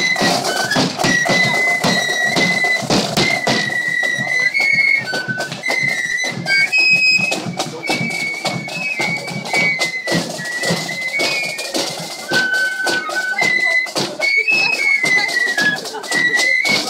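Marching flute band playing a tune: flutes carry a single high melody over the steady beat of a bass drum and side drums.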